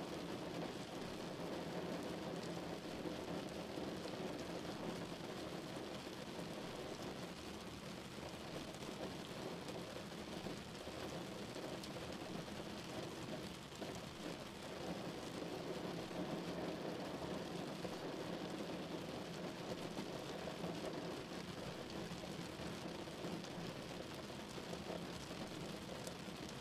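Steady rain on a moving car's roof and windscreen, heard from inside the cabin, mixed with the hiss of tyres on the wet road.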